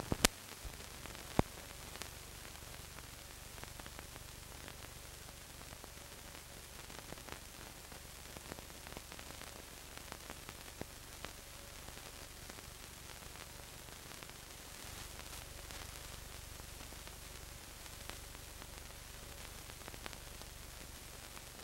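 Steady hiss and low hum of a vintage film soundtrack with no recorded sound, with two sharp pops in the first second and a half and scattered faint crackles after.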